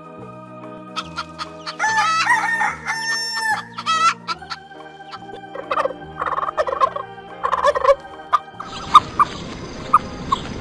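A rooster crowing about two seconds in, then a chicken clucking in short bursts, over background music with a stepped bass line. Near the end comes a noisy stretch with sharp clicks.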